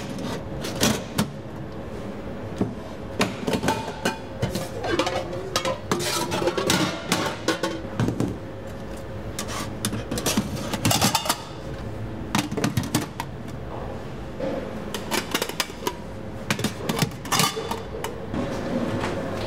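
Stainless steel gastronorm containers and their metal lids clanking and clinking as they are handled, set down and opened and closed in a counter, many sharp metal knocks at irregular intervals over a steady hum.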